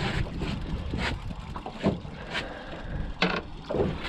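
Wind rumbling on the microphone aboard a boat at sea, with a scatter of short knocks and clatters, the loudest about three seconds in.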